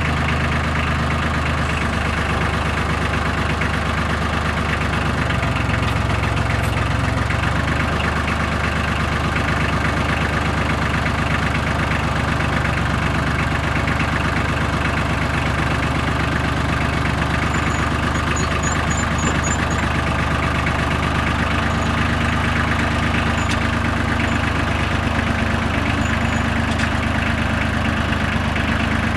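Tractor engine running steadily at low speed, its pitch shifting slightly a few times as the engine speed changes.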